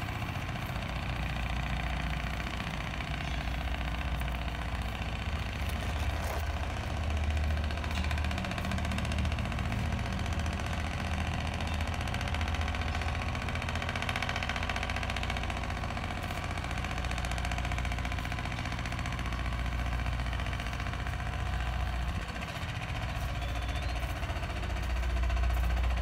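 An engine running steadily, a low hum with no change in speed.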